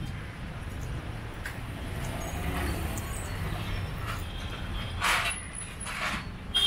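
Street traffic ambience: a steady low rumble of passing vehicles, with three short hisses near the end.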